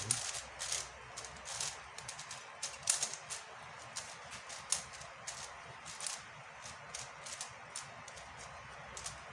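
Layers of an MF5S 5x5 speed cube being turned by hand: an irregular run of quick plastic clicks and clacks, with the loudest clacks about three seconds and near five seconds in.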